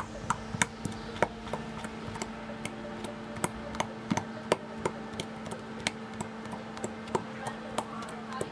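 Homemade glue-and-detergent slime being poked and kneaded by fingers in a plastic bowl, giving off irregular sharp clicks and pops, one to three a second, over a faint steady hum.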